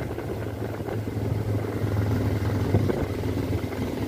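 A vehicle's engine running with a steady low drone and rumble.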